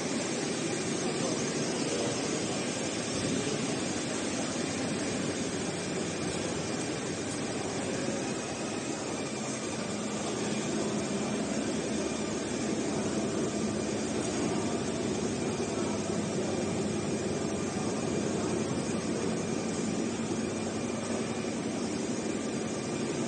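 Richpeace roll-to-roll CNC heating-wire sewing machine running: a steady, unbroken mechanical running noise from its sewing head and gantry drive.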